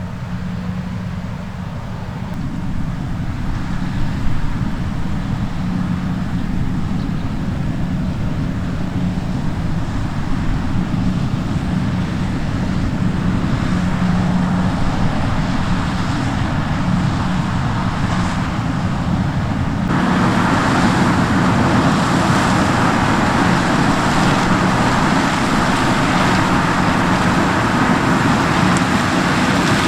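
Diesel engine of heavy farm machinery running steadily, with a constant low tone and growing louder over the first few seconds. About twenty seconds in, the sound changes abruptly to a louder, fuller machine noise.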